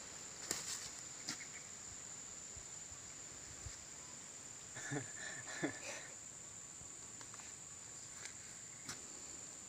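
Steady high-pitched drone of insects, with a few soft clicks and a brief faint sound about five seconds in.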